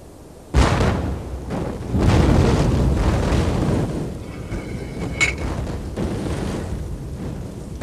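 Battle sound effects in a film soundtrack: a sudden loud boom about half a second in and a second one at about two seconds, each trailing off in a long rumble. A single sharp crack follows a little after five seconds.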